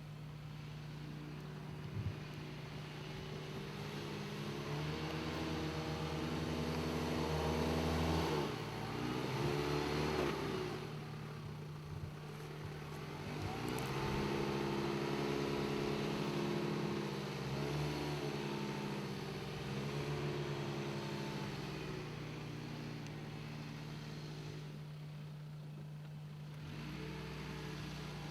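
Mitsubishi Outlander XL's 2.4-litre four-cylinder engine revving up and down several times, loudest about eight to ten seconds in and again from about fourteen seconds.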